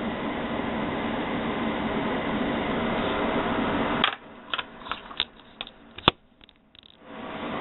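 Steady hissing noise that cuts off suddenly about four seconds in. It is followed by a few light clicks and taps of brass .45 ACP cartridges in a full moon clip being handled, with one sharp click about six seconds in.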